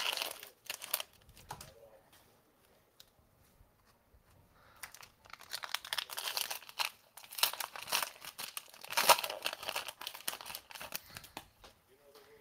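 Plastic wrapping on Panini Mosaic trading-card hanger boxes crinkling and tearing as the boxes are unwrapped by hand. It comes in two spells: a short one at the start, then a longer, busier one after a lull of a few seconds.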